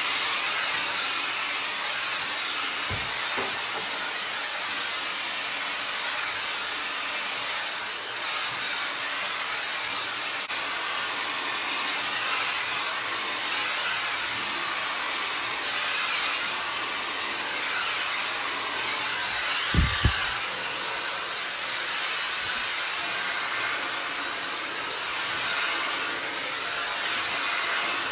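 Shark Flex blow dryer running steadily with its comb attachment, a loud even rush of air. There are a few brief low bumps as it is handled, once about 3 seconds in and twice in quick succession around the middle.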